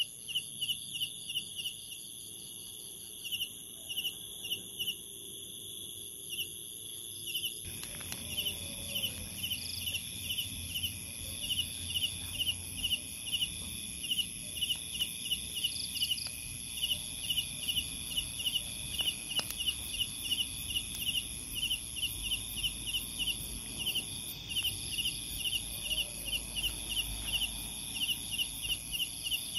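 Night insect chorus: a steady high-pitched trilling of crickets and other insects, with a short chirp repeating several times a second.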